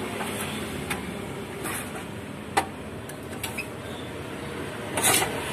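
Manual plastic-cup sealing machine at work: the cup tray slides in and the handle is pulled down to heat-seal film over the cup, giving a few sharp clicks and clacks and a short louder rasp near the end.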